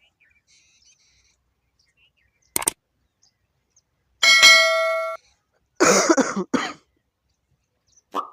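A metal engine part struck once, ringing with a clear clang for about a second. It comes between a light knock and a short clatter of metal parts being handled.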